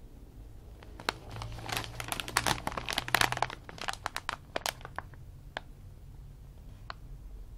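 Plastic snack bag of yam chips crinkling as it is handled and turned over in the hands. There is a dense run of crackles for about four seconds, then a few single crinkles near the end.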